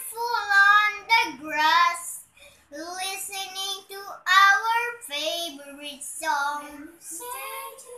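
A young boy singing unaccompanied in a high voice, with drawn-out notes that waver slightly and short pauses for breath between phrases.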